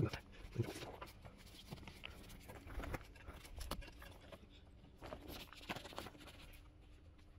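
Faint wiping of a cloth rag over car bodywork, with irregular light rubs and small taps and clicks from handling.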